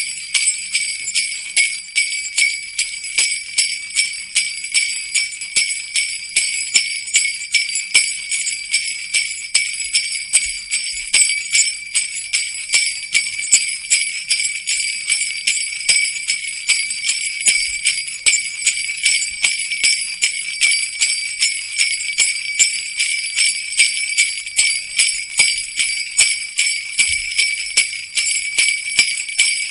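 Jingle bells shaken continuously in a steady, even rhythm.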